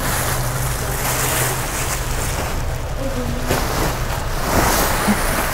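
Continuous rustling and crinkling of a black plastic liner and a woven plastic sack being handled and pulled open while packs of clothing are dug out.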